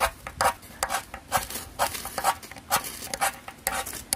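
Ferro rod struck repeatedly with a metal striker, a quick run of sharp rasping scrapes, roughly three a second, throwing sparks into dry grass tinder until it catches.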